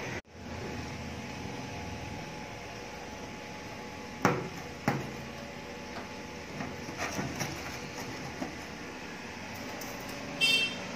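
Two sharp knocks about half a second apart, then a few softer taps, as small steel puja containers are handled on a steel counter, over a steady background hum. Near the end comes a short, high ringing tone.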